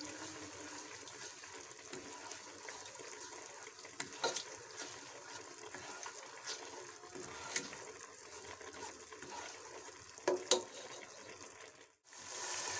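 Ginger and garlic paste sizzling in hot oil in a non-stick pot, being fried to cook off its raw taste, with a few scrapes and taps of a spatula against the pan. The sound cuts out briefly near the end.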